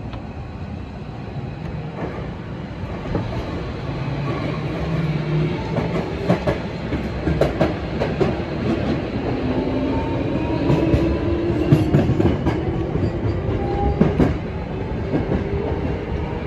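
Hankyu 7000 series electric train pulling away and picking up speed, heard from the driver's cab: a motor whine that rises steadily in pitch, with the wheels clacking over rail joints and points, the clatter loudest in the middle.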